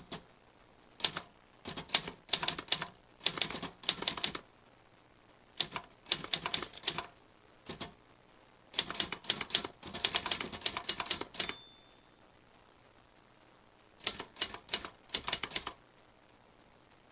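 Typewriter keys struck in four quick runs of clicks, separated by short pauses, with a brief ring at the end of the third run.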